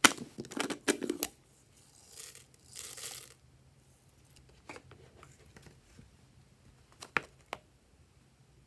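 Hands handling a plastic novelty bottle: a quick cluster of sharp clicks and knocks in the first second or so, then two short hissing rustles, followed by a few scattered sharp taps later on.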